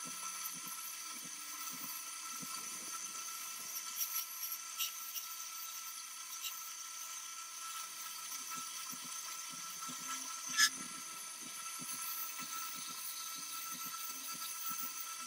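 Electric motor spinning a wire wheel brush with a steady high whine and a scratchy hiss as a rusty metal part is pressed against it to strip the rust. A few sharp ticks come through, the loudest about ten seconds in.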